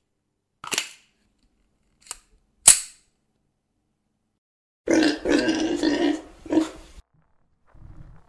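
Three sharp shots, the third the loudest, followed by a pig grunting for about two seconds.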